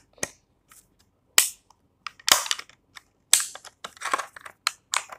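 Clear plastic egg carton used as a homemade pop-it, its cups pressed in by fingers: sharp plastic pops and cracks. Single pops come about a second apart at first, then quicker runs of pops near the end.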